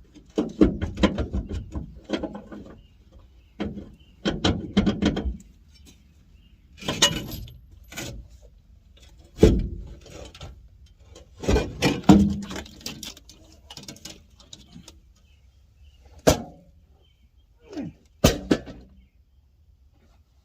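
Irregular bouts of metal clanking and rattling, with single hard knocks about midway and near the end: tools and steel hitch parts being worked loose under a truck.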